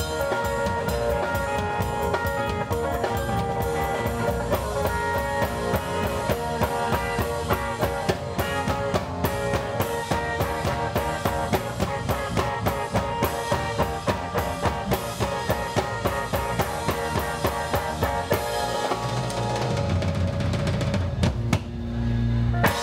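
Live rock band playing: a drum kit keeps a steady beat under electric guitars. Roughly three-quarters of the way through the drumming stops and low held notes ring on.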